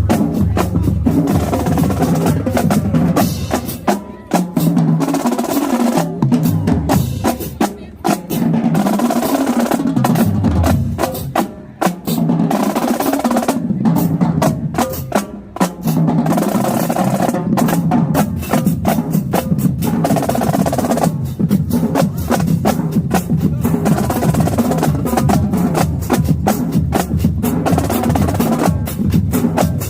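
Marching band drumline playing, with rapid snare drum strokes and rolls over bass drums.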